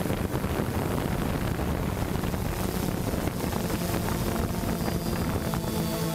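Steady whir of a quadcopter drone's propellers and motors, with wind buffeting the onboard microphone.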